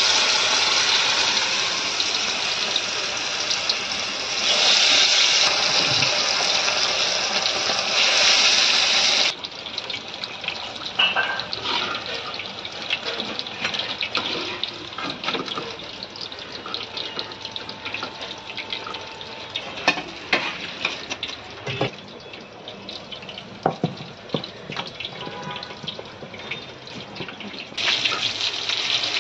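Battered food deep-frying in hot oil in a kadhai: a loud, dense sizzle of freshly added pieces. About nine seconds in it cuts off abruptly to a quieter crackle, with sharp clicks of a steel slotted spoon against the pan, and the loud sizzle returns near the end.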